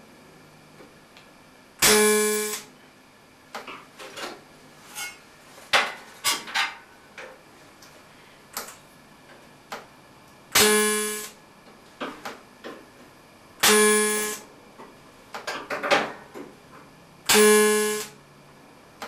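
TIG welding arc buzzing in four short tack welds on thin stainless steel at about 88 amps, each lasting under a second. Light clinks and taps of the metal pieces being handled come between the tacks.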